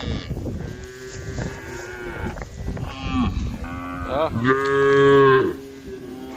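Several cows in a herd mooing one after another, their calls overlapping. The loudest is a long moo about two-thirds of the way through.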